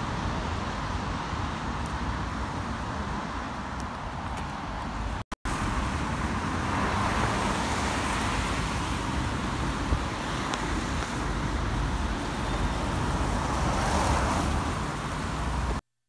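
Road traffic, with cars passing on a roundabout and their tyre and engine noise swelling louder as each one goes by. The sound drops out briefly about five seconds in and stops abruptly near the end.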